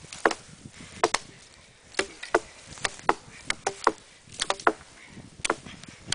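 Axes chopping branches off a felled spruce trunk (snedding): about fifteen sharp, irregular strikes, some coming in quick pairs and triples.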